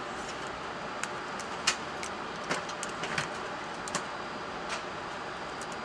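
Steady background hiss of an Airbus A330-300 flight deck, with several sharp clicks of cockpit switches and controls being worked during cockpit preparation; the loudest click comes a little under two seconds in.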